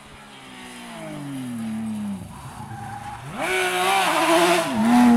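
Rally car engine falling in pitch as the car slows for a hairpin. About three and a half seconds in it revs up hard as the car accelerates away, with a brief dip near the end as it changes up a gear.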